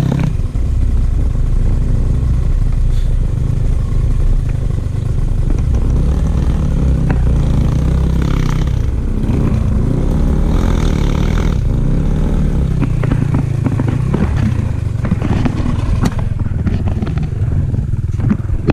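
Kovi Lite 250 enduro motorcycle engine running steadily while riding, its pitch rising and falling with the throttle, with some clatter from the bike over the ground.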